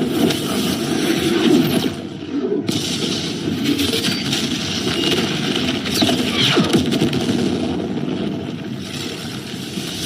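Dense, layered anime action sound effects: a loud rushing noise with several falling pitch sweeps through it, the hiss dropping out briefly about two seconds in.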